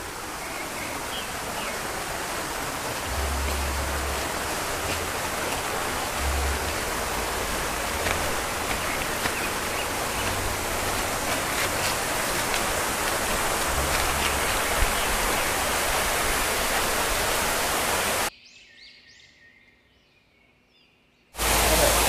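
Steady rushing of water from a waterfall or stream, with a few brief low rumbles. About 18 seconds in the rushing cuts off abruptly, leaving a few faint high chirps and then near silence, and it starts again just before the end.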